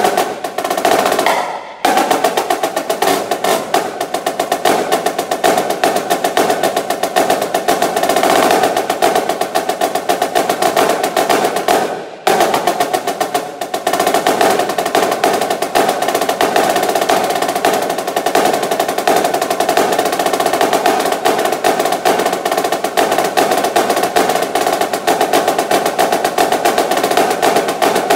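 Marching snare drum played with sticks in a fast rudimental solo: long stretches of dense rolls and rapid strokes, broken by two brief pauses, one about two seconds in and one about twelve seconds in.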